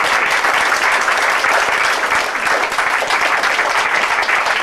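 A room full of people applauding, with steady, dense clapping.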